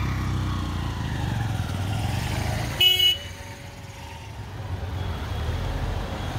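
Vehicle engines running close by, then one short horn toot about three seconds in, the loudest sound. After the toot the engine noise drops for a moment and then builds again.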